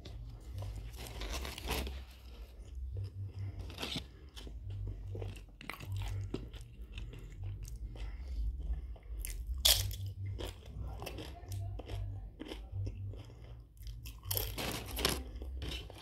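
Mouth-chewing of a steak burrito, then a guacamole-dipped tortilla chip bitten with a sharp crunch about ten seconds in and crunched in chewing after.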